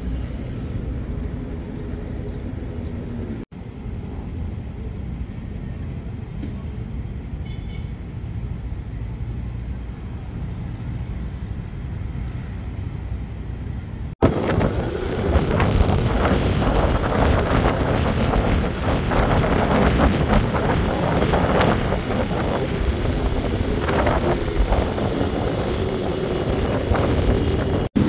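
Outdoor city ambience: a steady low rumble of distant traffic, which cuts about fourteen seconds in to louder, fuller road traffic noise.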